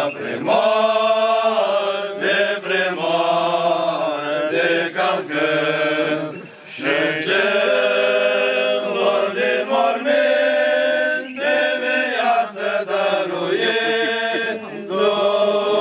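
Orthodox church choir singing slow, sustained liturgical chant, drawn-out melodic phrases with a short break about six and a half seconds in.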